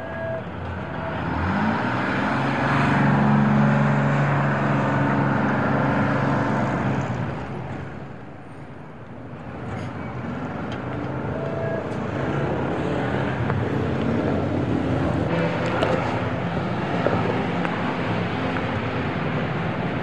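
Bus engines in a bus terminal. One builds up about two seconds in, runs loud for several seconds and dies away around eight seconds. Another builds from about ten seconds and keeps running over the steady background noise.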